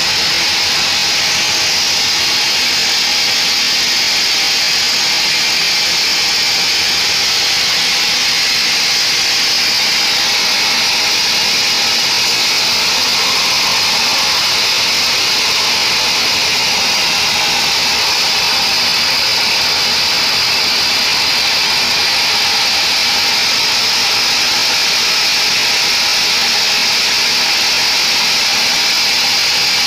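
Band sawmill blade ripping lengthwise through a mahogany beam as the log carriage feeds it past the saw: a loud, steady, high-pitched saw noise that holds without a break.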